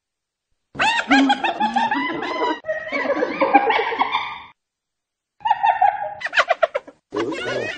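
Hyena giggling: rapid runs of short, high-pitched yelps that each rise and fall, in three bouts with short silent gaps between them, starting about a second in.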